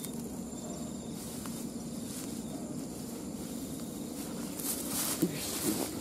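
Insects chirring steadily, a high thin drone, over a field ambience. About five seconds in come a couple of short, sharp, louder sounds.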